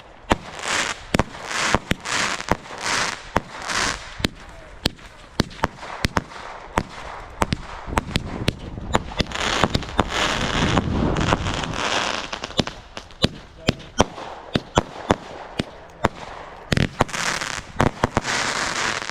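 Fireworks going off: a rapid, irregular run of sharp cracks and bangs, with several hissing swells mixed in.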